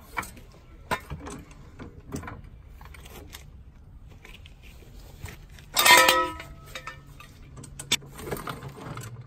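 Pittsburgh hydraulic floor jack raising the car, with scattered light clicks and knocks as its handle is worked. About six seconds in, a loud metallic clang with a brief ringing as the steel jack stand is pulled out from under the car, then a few smaller clicks.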